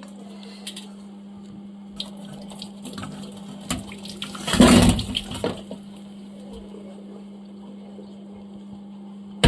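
Hot water from boiled amla (Indian gooseberries) poured out of a metal pot into a perforated metal colander, splashing and draining, heaviest about four and a half seconds in. A steady low hum runs underneath.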